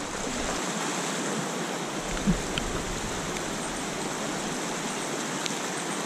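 Small creek pouring over a low rock ledge into a pool: a steady rush of flowing water, with one brief low sound a couple of seconds in.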